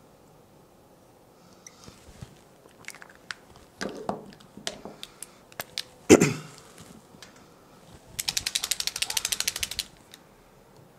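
Marker pens handled at a glass lightboard: scattered clicks and taps as markers are picked up and uncapped, then a rapid, even chattering of clicks for about a second and a half near the end as a marker works on the glass. A short vocal sound, falling in pitch, about six seconds in.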